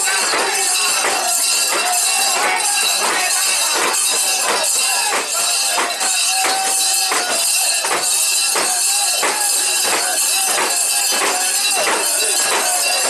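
Mikoshi (portable shrine) being carried, its metal fittings clanking and jingling together in a regular rhythm of about two strokes a second, with the bearers' voices chanting over it.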